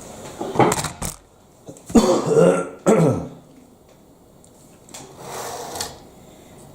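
A person clearing their throat in short, loud bursts, about a second in and again two to three seconds in, with a softer breathy sound near the end.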